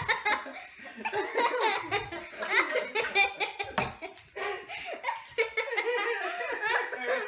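Two young girls giggling and laughing together.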